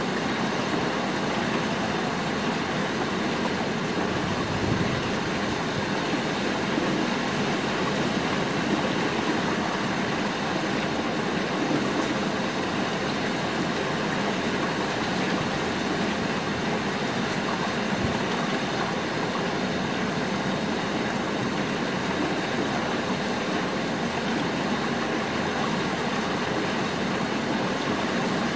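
Steady rain falling on shingle rooftops, an even hiss.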